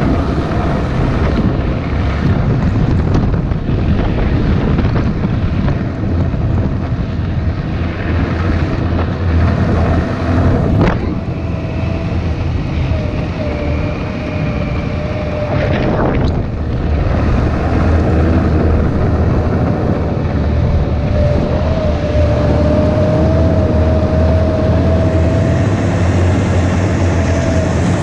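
Snowmobile engine running steadily while under way, with a faint whine and wind buffeting the microphone. Two short knocks partway through.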